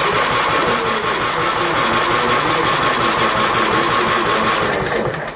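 Electric starter cranking the 15 hp Kohler Command single-cylinder engine of a John Deere LT155 lawn tractor, turning it over steadily without it firing, then stopping near the end. The engine will not catch after three years of sitting, with the choke on.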